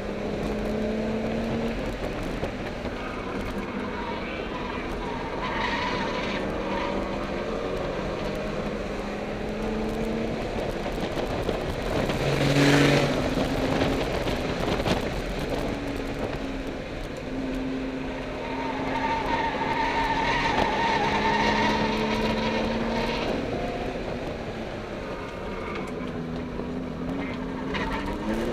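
Car engine running hard on a racetrack, heard from inside the cabin: its note holds steady, breaks off and shifts in pitch as the car is driven through the corners, with a loud rushing burst about halfway and the note climbing again near the end under acceleration.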